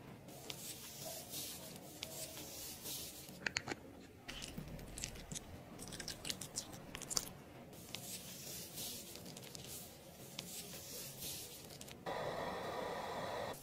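A brush stirring thick face-mask paste in a small glass bowl: soft wet scraping with scattered clicks against the glass. About twelve seconds in, a louder steady hiss takes over.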